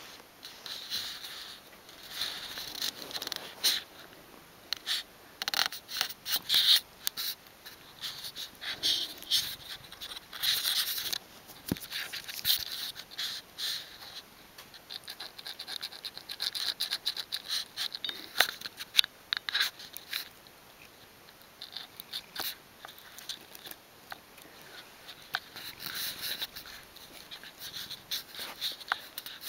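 Irregular scratching and scraping, broken by many quick sharp clicks.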